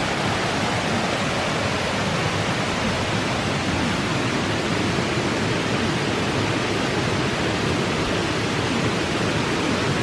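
Steady rush of water from a small cascading forest stream and waterfall.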